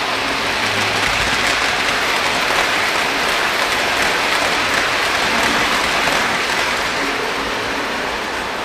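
O gauge Lionel 773 Hudson steam locomotive and its passenger cars rolling past close on three-rail track: a steady rush of wheels on the rails that swells as the cars go by and fades near the end.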